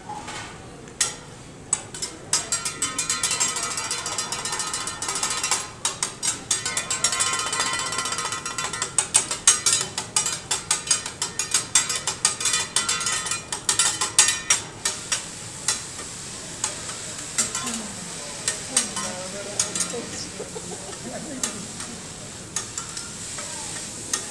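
Metal spatula and fork clacking and scraping rapidly on a steel hibachi griddle as fried rice is chopped and stirred, over a steady sizzle. The clacking is densest in the first half and thins out after about fifteen seconds, leaving mostly sizzling with a few taps.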